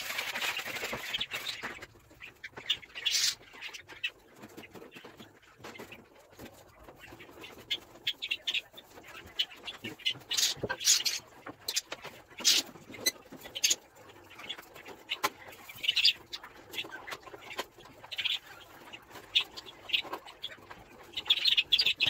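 Caged budgerigars and other small cage birds chirping in short, scattered calls, with a scraping rustle during the first two seconds and a few sharp knocks of cage parts being handled.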